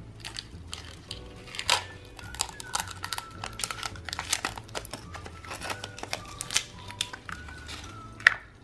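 Thin clear cellophane seal crinkling and crackling as it is peeled off a small plastic candy cup, in many irregular crackles.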